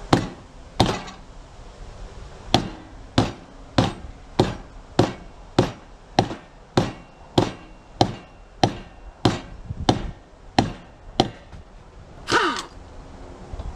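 A hammer striking the wheel and axle of a riding lawn mower being taken apart for scrap: about seventeen blows, two separate ones and then a steady run of nearly two a second. Near the end comes a short screech that falls in pitch.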